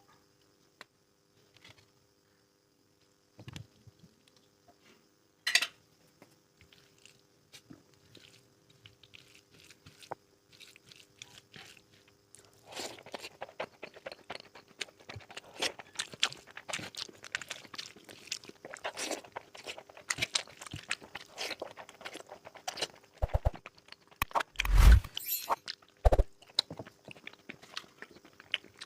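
Close-miked eating: chewing and crunching of food with wet mouth noises. It is sparse at first and becomes continuous from about halfway through, with a loud thump near the end.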